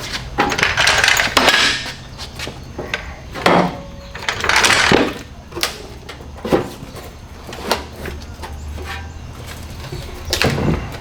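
Scraping and knocking of a folded metal RV step assembly being handled and pushed into a cut opening, in several rough bursts with a handful of sharp knocks between them, over a steady low hum.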